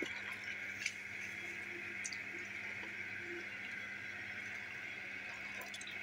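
Handfuls of soaked rice dropped by hand into a pot of boiled water, giving a few soft splashes and wet clicks over a steady high-pitched hiss.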